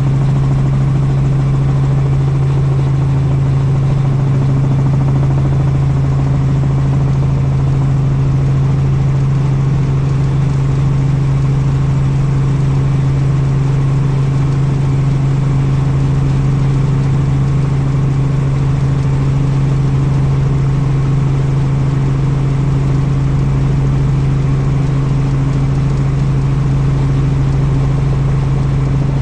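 Helicopter in flight: a loud, steady drone with a strong low hum.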